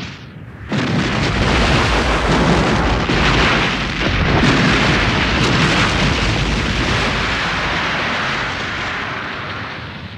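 Explosion sound effect: a sudden blast a little under a second in, then a long rumble of fire that slowly fades near the end.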